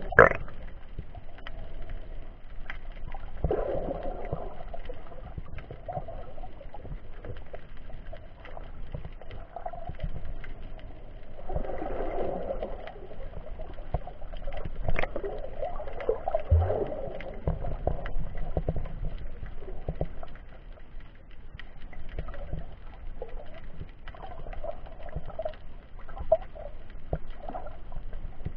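Muffled underwater noise picked up through an action camera's waterproof case: water swishing and gurgling in uneven swells, with a low rumble and a few scattered knocks.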